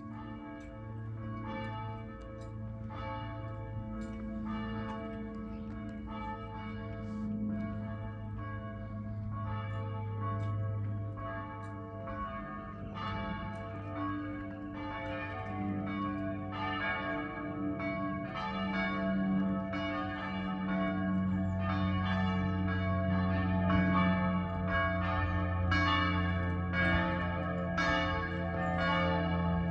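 Church bells of Rye church being rung: a steady succession of bell strikes, about two a second, each note ringing on into the next, growing louder toward the end.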